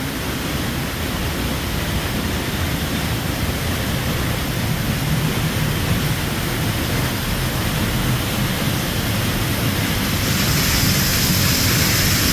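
Waterfall pouring close by: a steady, loud rush of falling water that grows louder and brighter about ten seconds in.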